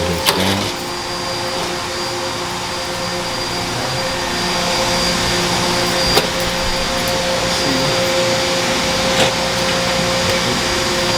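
A steady mechanical whir, like a fan or motor running, with a few short clicks.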